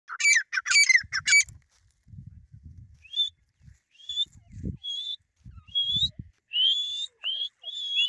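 Young grey francolin calling: three loud, shrill, wavering calls in the first second and a half, then a string of shorter rising calls about once a second. Faint low thumps sound underneath.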